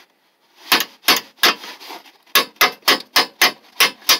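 A fan-mounting clip being tapped into its slot on a car radiator with a metal hand tool used as a hammer: three sharp taps, a short pause, then a quicker run of about eight taps.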